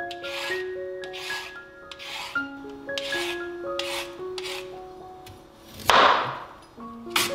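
Repeated scraping or rubbing strokes, about one a second, with a louder rushing stroke about six seconds in, over gentle background music.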